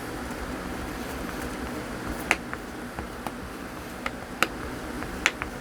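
Small sharp plastic clicks and taps, about seven, spread over the second half, from hands working the lens protector and squeegee on the phone, over a steady low hum.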